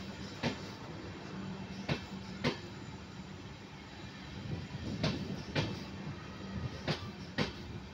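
LHB passenger coaches rolling past, their wheels clacking over the track in pairs about half a second apart, four pairs in all, over a steady rumble and low hum.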